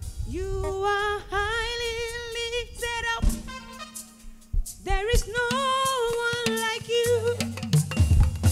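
Nigerian gospel praise music: a woman singing long, high held notes with a wavering pitch over drums and bass. The voice breaks off briefly partway through while a few drum hits sound.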